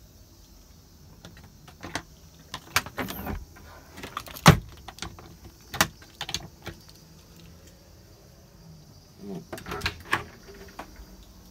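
Irregular clicks and knocks inside a camper van, as its doors and fittings are handled: the loudest knock about four and a half seconds in, and another cluster near the end.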